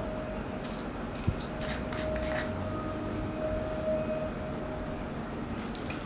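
Low background rumble with a faint steady hum that fades out about five seconds in. There is one sharp click just over a second in and a few soft handling noises around two seconds.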